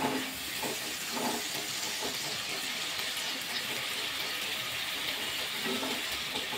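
Tomato-and-spice masala sizzling in oil in a nonstick kadai, a steady hiss, while a wooden spatula stirs and scrapes through it, with a few soft scrapes in the first second and a half and again near the end. The masala is being fried down (bhuna) until the tomato has melted into it.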